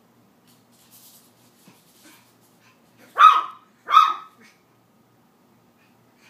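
Schnauzer puppy barking twice, sharp high barks about three seconds in and again under a second later: the alarm barks of a frightened puppy.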